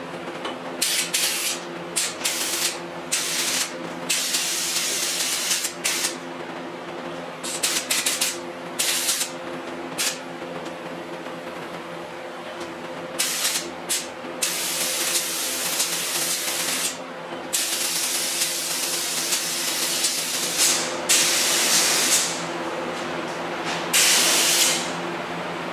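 Compressed-air spray gun hissing in on-off bursts as its trigger is pulled and released while spraying epoxy primer: short bursts at first, then longer passes of two to three seconds each. A steady low hum runs underneath.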